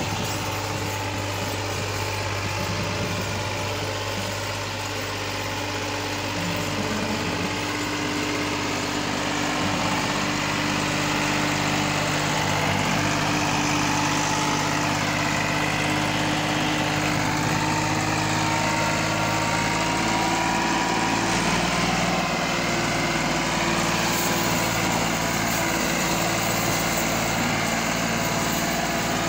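Massey Ferguson 260 tractor's diesel engine running under heavy load, pulling a fully loaded trolley. The engine note is steady and shifts up about a third of the way in, then creeps higher in the second half.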